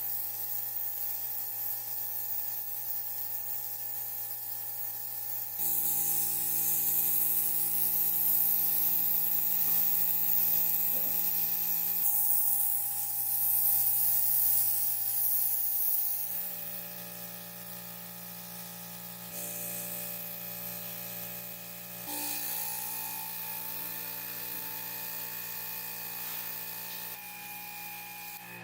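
A steady electric motor hum with a strong high hiss, its pitch and loudness jumping abruptly several times.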